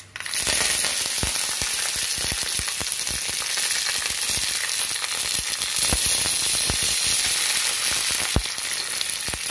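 Fresh curry leaves hitting hot mustard oil in a steel ladle of tadka (tempering with cumin, dried red chilli and mustard seeds), sizzling loudly with sharp crackling pops. The sizzle starts suddenly as the leaves go in.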